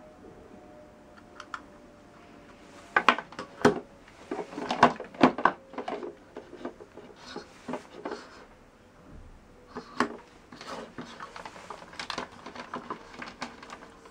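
Plastic power adapters, plugs and cables being handled and plugged into a power strip: an irregular run of clicks, knocks and light clatter, loudest a few seconds in.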